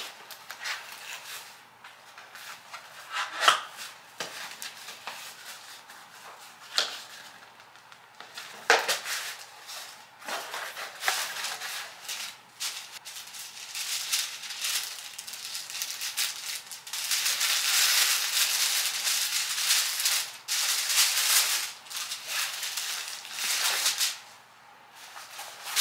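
Parcel packaging rustling and crinkling as a clothing package is unwrapped. There are scattered sharp snaps early on, then a longer, louder stretch of continuous crinkling in the second half.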